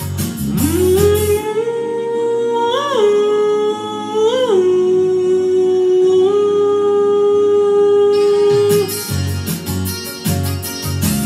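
A man's voice holding one long wordless note for about eight seconds, with two quick upward flicks in pitch, over a karaoke backing track of guitar and keyboard. The backing track's beat drops away under the note and comes back near the end.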